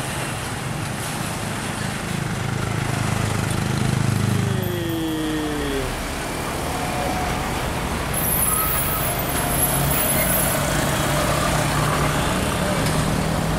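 Road traffic at a bend: the diesel engines of a tour bus and then a container truck running as they pass, with motorcycles and cars going by. The engine hum is loudest in the first few seconds, and there is a short falling tone about five seconds in.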